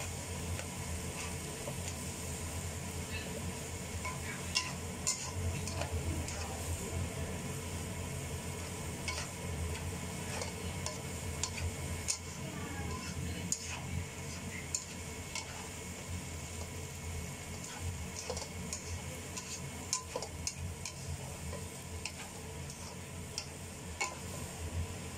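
Noodles and bean sprouts being stir-fried in a nonstick wok: a steady sizzle with irregular scrapes and taps of the utensil against the pan as the food is tossed.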